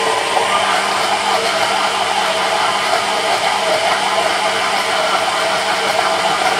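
Countertop blender running steadily, mixing flour into a potato batter.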